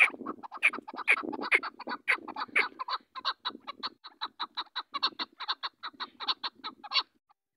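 Chukar partridge calling: a fast, unbroken run of short clucking notes, about six a second, that starts suddenly and stops about seven seconds in.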